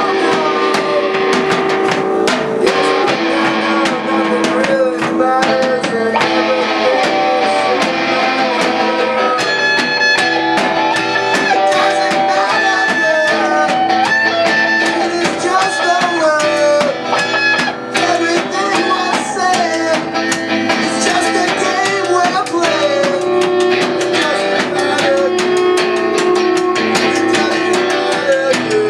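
Live rock band playing loudly and without a break: electric guitar, drum kit and keyboard, with vocals into the microphone.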